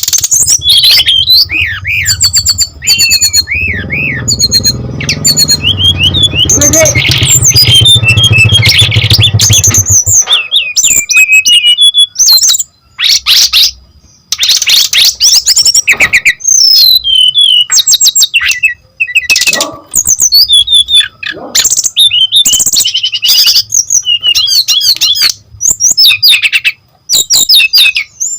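Brown-chested jungle flycatcher singing non-stop in full song: fast, varied high whistled phrases, quick trills and chirps following one another with only short breaks. A low rumble lies under the song for about the first ten seconds.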